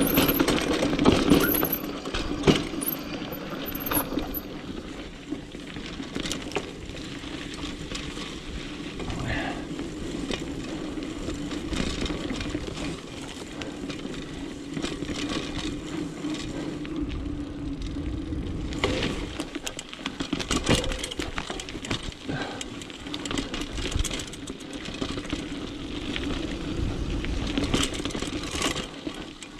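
Specialized Pitch mountain bike rolling along dirt singletrack: a steady tyre-on-dirt rolling noise with frequent clicks, knocks and rattles from the bike as it goes over bumps, heaviest in the first few seconds.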